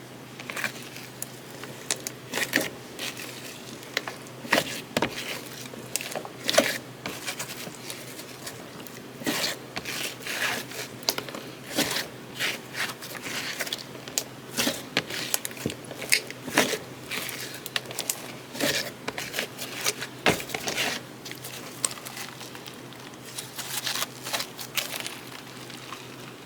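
Homemade slime squeezed and worked by hand, giving irregular sticky clicks and crackles, several a second at times.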